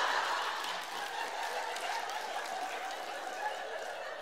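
Live audience laughing and clapping, the sound slowly dying down.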